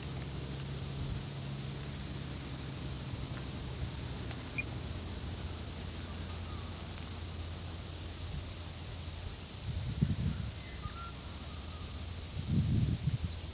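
Steady, high-pitched chorus of insects over a low, steady hum, with a few brief low rumbles near the end.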